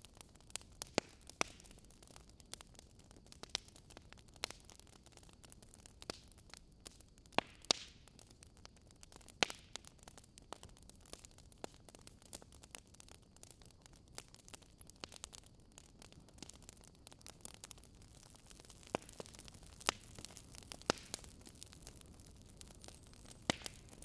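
Wood fire crackling: irregular sharp pops and snaps over a soft steady hiss.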